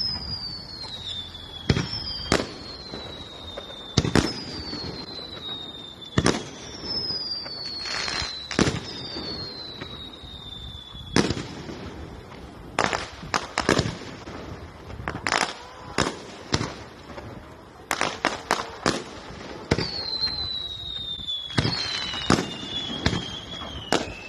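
Aerial firework shells bursting in a long series of sharp bangs, thickest past the middle. Whistling shells go up among them, each whistle falling in pitch over a second or two.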